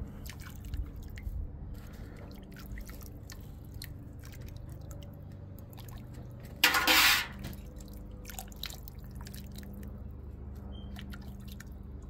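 Menudo being ladled from a large aluminum stockpot into a bowl: liquid dripping and splashing, with small clicks of the ladle, over a steady low hum. A louder, brief rush of noise comes about seven seconds in.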